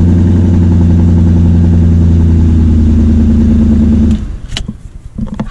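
BMW E34 540i's 4.0-litre M60 V8 running at a steady idle just after a successful start in the cold, the no-start fault cured by new capacitors in the general module. The engine sound cuts off abruptly about four seconds in, leaving a few scattered clicks and knocks.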